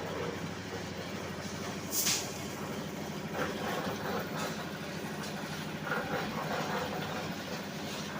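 Diesel engine of road-construction machinery running steadily, with a short hiss about two seconds in and light clattering later.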